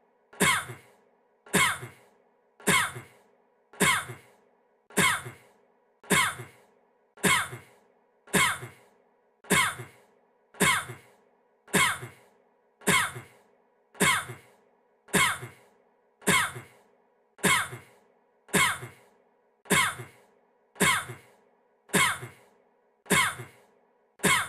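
A young man's single short cough, the same recording looped over and over, about once a second.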